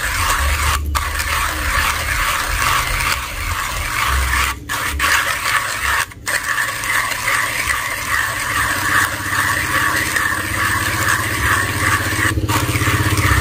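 Manual hand coffee grinder being cranked, its burrs crunching through light-to-medium roast coffee beans in a steady, rhythmic scraping. The grinding breaks off very briefly four times.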